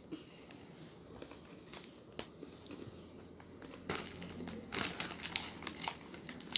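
A shiny plastic snack packet crinkling as it is handled, in scattered rustles and small clicks that get busier about four seconds in.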